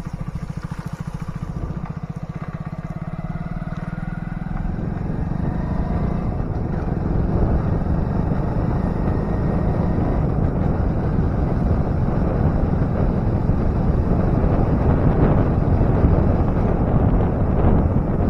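Motorcycle engine running as the bike rides off, its note rising over the first few seconds. A rush of wind on the microphone then builds and grows louder as the bike gathers speed.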